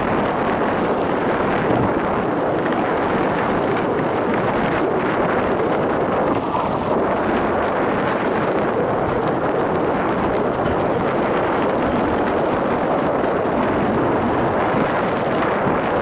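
Mountain bike riding fast over a dirt forest trail: a steady rush of wind on the microphone mixed with knobby-tyre rumble and rattle from the bike over the rough ground.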